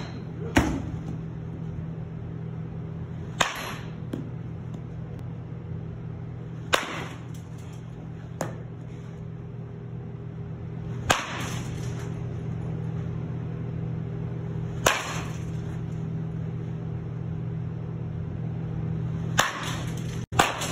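Baseball bat striking pitched balls: about seven sharp cracks, one every 3 to 4 seconds, over a steady low hum.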